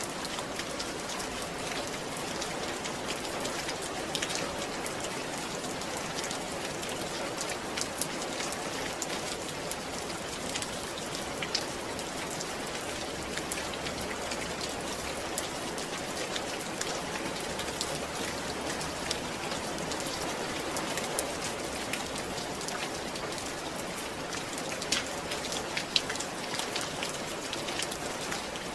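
Steady rain falling, an even hiss with many individual drops striking sharply through it.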